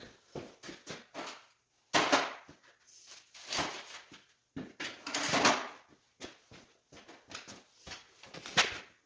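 Hands working at motorcycle wiring and plastic parts: a string of irregular clicks and knocks, with louder rustling bursts about two, three and a half, and five seconds in.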